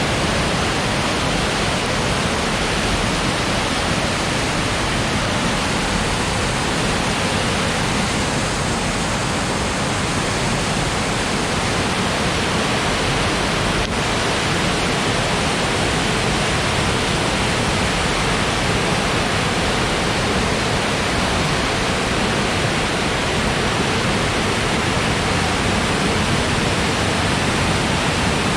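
Rushing water of a small river running high after rain: a steady, loud, unbroken rush.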